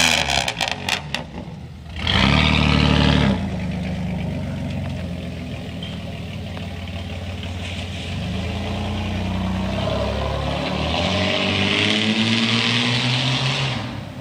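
1993 Dodge Dakota's 3.9-litre V6 with a straight pipe and no catalytic converter or muffler, revving in a short loud burst about two seconds in after a few sharp cracks. It then drones on at a distance and rises in pitch twice more as it accelerates away.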